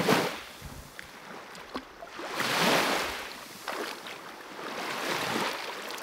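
Shallow seawater sloshing and lapping as a whole cooked barramundi is swished by hand to rinse off the sand. It swells and fades three times, loudest about two and a half seconds in.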